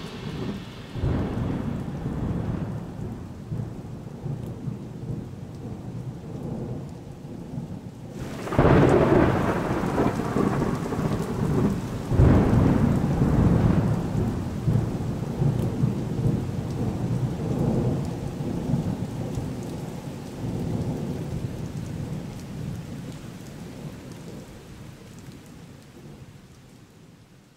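Thunderstorm: steady rain with two loud rolls of thunder, about a third of the way in and again a few seconds later, then dying away near the end.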